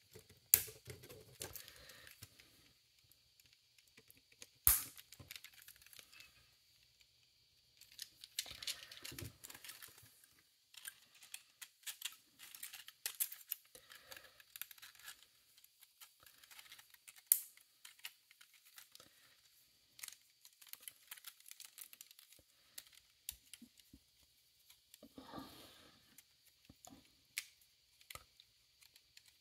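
A 3D-printed plastic folding laptop stand being worked by hand as its print-in-place hinges are loosened: scraping and rattling of the plastic arms being folded and unfolded, broken by a few sharp clicks.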